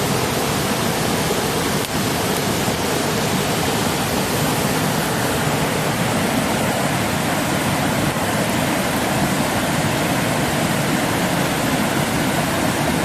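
Steady rushing of a stream, a constant even wash of water noise.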